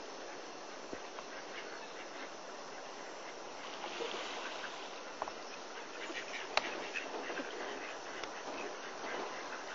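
Outdoor ambience at a bird reserve: a steady background hiss with scattered short bird calls and chirps, and one sharp click about six and a half seconds in.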